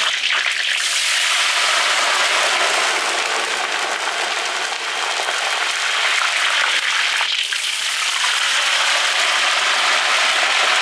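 Pork belly deep-frying on high heat in a wok of oil: a loud, steady crackling sizzle. Water sprinkled onto the hot oil makes it foam up and spit, which helps the skin crisp.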